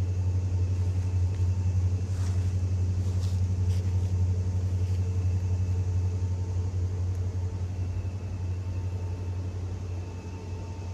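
A steady low engine rumble with a faint even hum above it, easing off slightly near the end.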